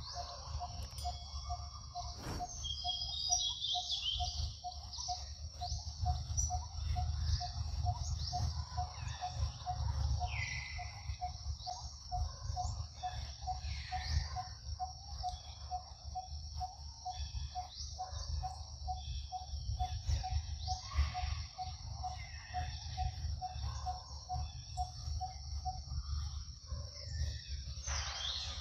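Outdoor forest ambience: scattered bird chirps over a steady high-pitched drone, with a short low note repeating about twice a second that stops near the end, and a low rumble underneath.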